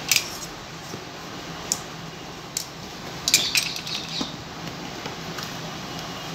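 Handling of a cardboard parcel and a large pair of metal scissors on a tiled floor: a few sharp clicks and taps, with a short clatter of several in quick succession about three seconds in.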